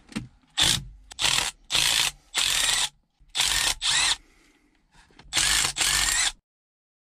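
Milwaukee M12 FUEL cordless ratchet spinning out half-inch bolts in about eight short bursts of whirring.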